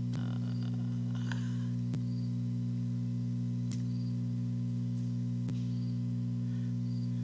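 Steady low electrical hum, with faint clicks repeating about every second and three-quarters. A brief rustle of the webcam being handled and moved comes in the first second or so.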